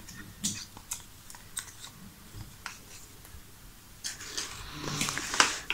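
Stiff cardboard game tiles clicking and shuffling against each other in the hands, with scattered sharp clicks, then set down in a plastic toy case, where the rustling and clatter of cards grows busier over the last second or two.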